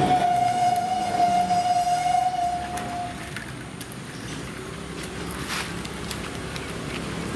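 A vehicle horn sounding one long steady note for about three seconds, then stopping, over the noise of passing road traffic.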